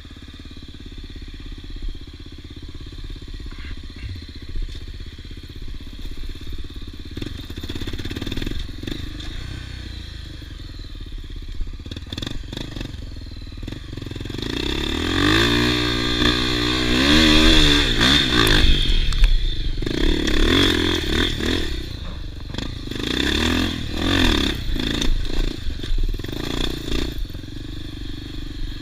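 Off-road motorcycle engine: low running at first, then from about halfway through it revs hard, the pitch rising and falling over and over for several seconds, with further loud revving surges after that.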